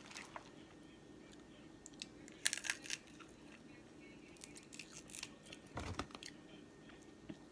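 Seafood shells being cracked and pulled apart with eating noises: a few short clusters of crackly crunching and tearing, with a dull knock about six seconds in.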